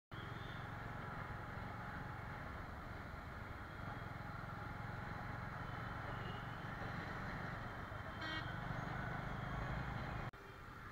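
Motorcycle engine running under way amid road traffic noise, with a brief horn sounding about eight seconds in. The sound drops suddenly to a quieter level about ten seconds in.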